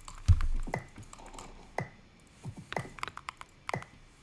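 Scattered light clicks and taps, with a loud low thump about a third of a second in and a brief high-pitched click-tone recurring about once a second.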